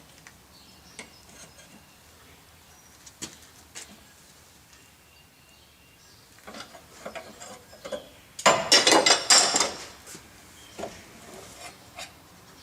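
Steel forging tools and stock clinking and rattling against each other: a few scattered light clicks, then a loud burst of ringing metal clatter lasting about a second and a half, two-thirds of the way in.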